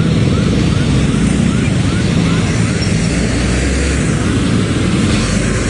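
Motorcycle engine running with heavy wind rumble on the microphone while riding. A faint high chirp repeats about three times a second through the first half.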